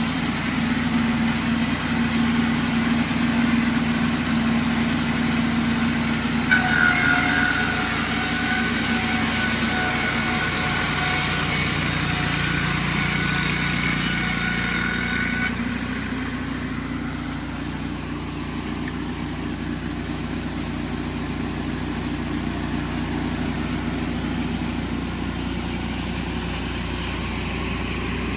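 A Wood-Mizer band sawmill's engine runs steadily while boards are edged. A higher steady whine joins about six seconds in and stops about halfway through, then the engine runs on a little quieter.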